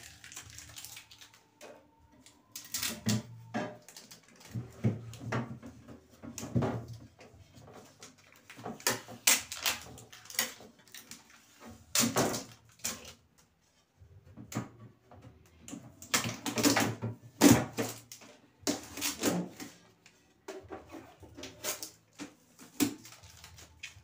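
Clear plastic fridge door racks, shelves and drawers being handled and slotted into place: irregular clicks, knocks and rattles of plastic in bunches, with quieter handling noise in between.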